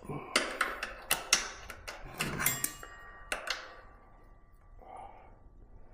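Sharp metallic clicks and taps of long-nose pliers working a small bent part on an e-bike's rear disc brake during a brake pad change. There are about a dozen clicks over the first three and a half seconds, then only faint handling noise.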